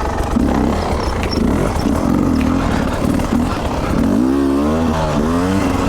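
Two-stroke dirt bike engines running at low trail speed, the pitch rising and falling with the throttle from about two-thirds of the way through.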